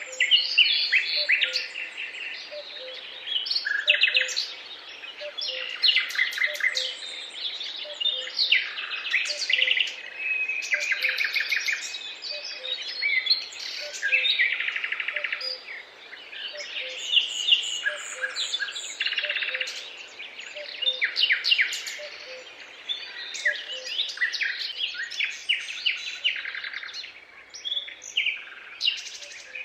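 A chorus of several songbirds singing at once: overlapping trills, chirps and whistled phrases, with a faint low note repeating about once a second beneath them.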